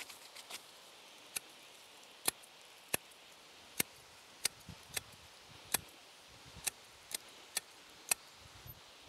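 Hand pruning shears snipping through western thuja ('Smaragd') shoots during topiary clipping: about a dozen sharp, separate snips at uneven intervals, roughly one every half second to a second.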